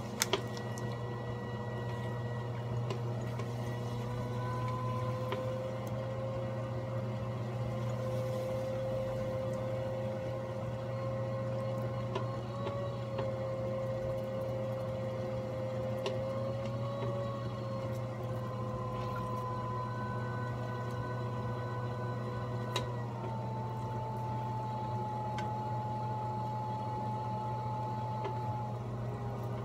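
Electric pottery wheel motor running steadily under load with a low hum and a whine above it. The whine wavers a little and drops slightly in pitch about two-thirds of the way through.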